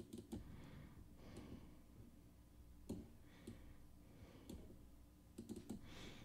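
Near silence with faint, scattered computer mouse clicks: a few single clicks, then a quick cluster of several about five and a half seconds in.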